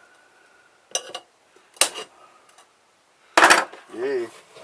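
Sharp metal clinks and knocks from tools working on a stainless-steel water filter housing: two light clicks, then a loud metallic clatter about three seconds in, just before a cheer of success.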